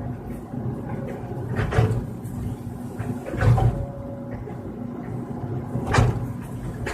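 Excavator's engine running steadily, with three loud metallic clunks as the machine works.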